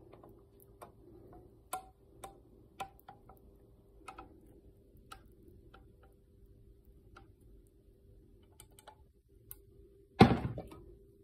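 Light clicks and taps from a frying pan as thick gravy is poured out of it into a bowl, then one loud clunk near the end, over a faint steady hum.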